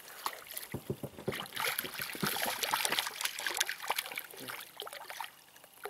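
Water splashing and dripping in small irregular splashes as a hooked fish is brought up out of the river. There are light knocks among them, and the sound eases off near the end.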